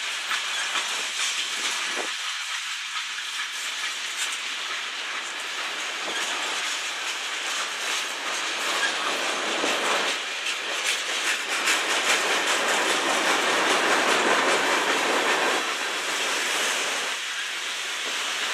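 Cars of a mixed manifest freight train rolling past: steel wheels rumble and clack over the rail joints in a steady rushing noise. It swells loudest about two-thirds of the way through, then eases.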